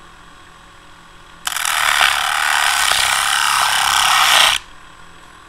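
Ryobi ONE+ cordless rotary tool at minimum speed, its cut-off wheel cutting into cardboard: a loud, harsh grinding starts suddenly about a second and a half in and stops abruptly about three seconds later.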